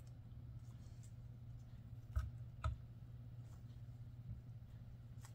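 Two light plastic knocks about half a second apart as small resin-crafting supplies are handled on a work mat, over a steady low hum.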